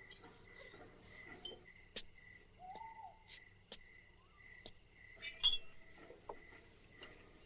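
Crickets chirping in a faint, steady, evenly repeating pulse, with a few faint clicks and a louder clink of glass about five and a half seconds in.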